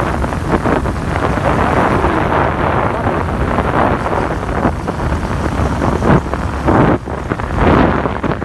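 Wind buffeting hard on the microphone of a vehicle moving along a road, gusting irregularly, with the vehicle's engine rumbling steadily underneath.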